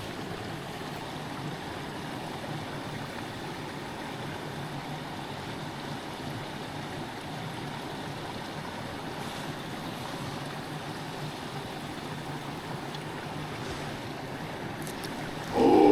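Steady rushing of a small mountain stream running over rocks.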